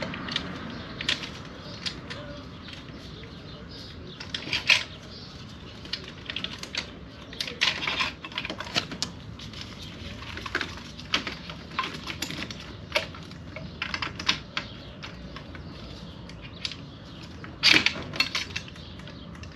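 Hand ratchet clicking in short runs with metal tools clinking, as the injector hold-down bolts are turned a little at a time. The clicks come irregularly, the loudest cluster near the end.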